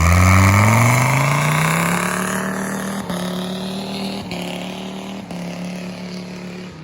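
1997 Dodge Ram 2500's 8.0-litre V10 exhaust under hard acceleration: the engine note climbs steadily in pitch for about two seconds, then holds at a steady pitch while the sound slowly fades.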